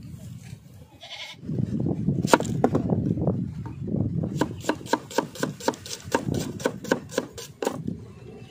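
Shallots being sliced with a curved iron blade against a wooden pestle: a quick run of sharp cutting taps, about four or five a second, starting about two seconds in.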